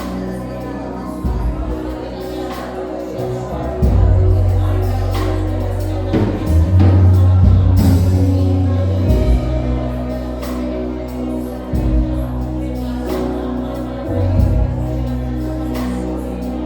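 Live gospel music: a band plays held deep bass notes that change every two or three seconds under sustained chords, with occasional drum hits and some singing.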